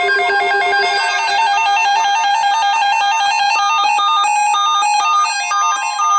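Several weather alert radios sounding their alarms at once: a fast warbling two-tone alert with a steady tone under it. Repeated higher beeps, about two a second, join in from about three and a half seconds in.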